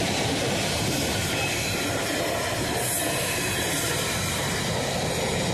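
A loaded container freight train's wagons rolling past close by at speed, a steady rumble and rattle of wheels on the rails.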